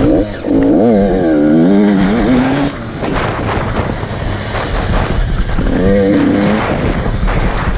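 Off-road dirt bike engine revving hard under load, its pitch swinging up and down as the throttle is worked over rough ground. It eases back for a few seconds, then revs up and down again near the end. Wind and rumble buffet the helmet-mounted microphone throughout.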